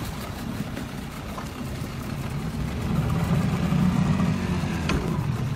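Small fishing boat's outboard motor running, growing louder about three seconds in, with one light knock near the end.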